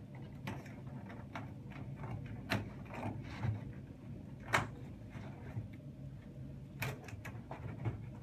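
Cat-apartment cells being pulled and slid through their frame by hand: scattered knocks and light scrapes of the parts against each other. The sharpest knocks come about halfway through and again near the end.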